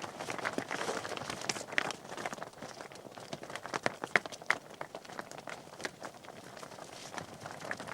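Donkey's incidental sounds between brays: irregular light knocks, clicks and rustling, with the sharpest clicks about two and four seconds in; no braying.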